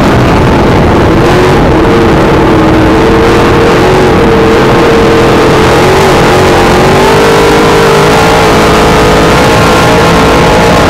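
Dirt modified race car's V8 engine running hard on the track, heard from inside the cockpit and loud enough to overload the microphone. Its pitch falls briefly at the start, then holds fairly steady with small rises and falls.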